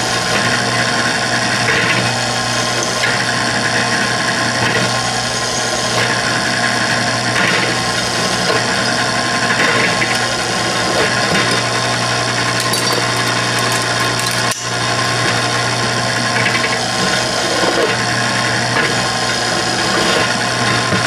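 Bench drill press running steadily with a countersink bit cutting the burrs off the back of drilled holes in a small steel armour plate. Scraping of the bit on the steel comes and goes every second or two as the plate is fed up to it.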